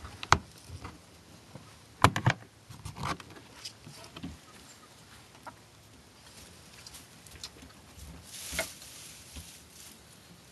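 Knocks and clatter of the wooden coop's doors and boards being handled: one sharp knock near the start, a quick cluster of knocks about two seconds in, then lighter knocks.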